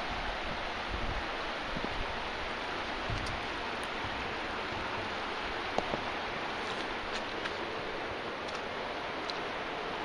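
River water flowing steadily, a continuous rushing hiss, with occasional low wind buffets on the microphone.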